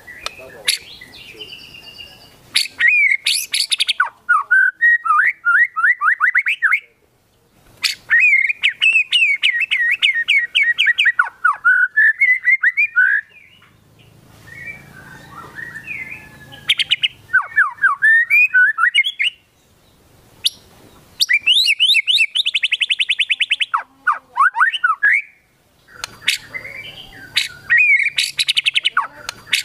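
White-rumped shama (murai batu) in full song: loud bursts of varied whistled phrases and fast trilled runs, broken by short pauses every few seconds.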